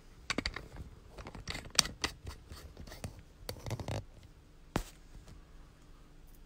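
Handling noise: a quick run of clicks, knocks and scratches over the first four seconds, then one sharp click a little before five seconds.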